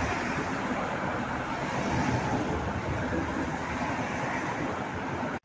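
Wind buffeting a phone microphone: a steady rushing hiss with a choppy low rumble.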